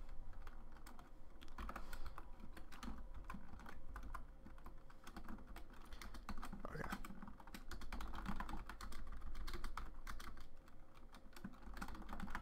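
Computer keyboard typing in irregular runs of keystrokes, over a faint low hum.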